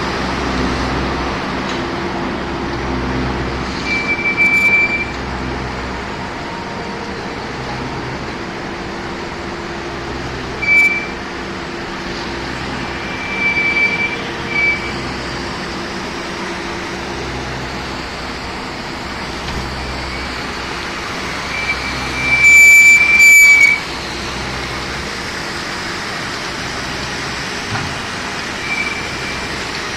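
Spiral classifier running in a coal slime washing plant: a steady mechanical din with a slow low pulsing, broken every few seconds by short high-pitched squeals. The longest and loudest squeal comes about two-thirds of the way in.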